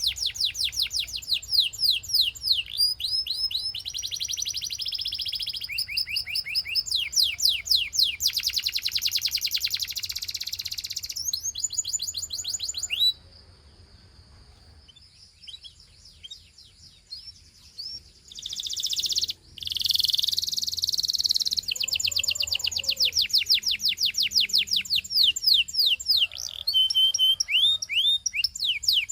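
Gloster canary singing in long, rapid trills of evenly repeated high notes. The song breaks off about halfway through for a few seconds with only a few faint chirps, then the trilling starts again.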